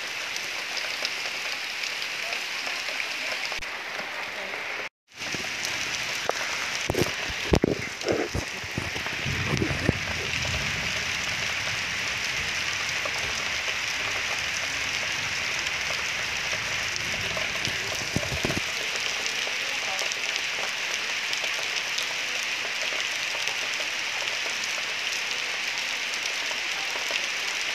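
A steady hiss of outdoor noise, much like rain. It cuts out for a moment about five seconds in, and a few knocks and rustles come between about seven and ten seconds.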